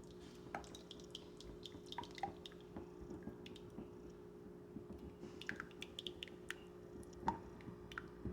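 Faint, scattered light clicks and wet squishes of homemade barbecue sauce being stirred and mixed, over a steady low hum.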